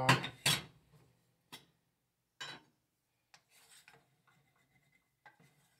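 A stainless saucepan and its lid clank sharply twice on the gas stove at the start, followed by a couple of separate knocks. Then a wooden spoon softly scrapes and fluffs cooked quinoa in the pan.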